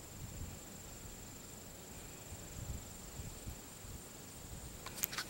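Quiet outdoor ambience: a faint steady high-pitched whine, faint low rumbles, and a couple of sharp clicks about five seconds in.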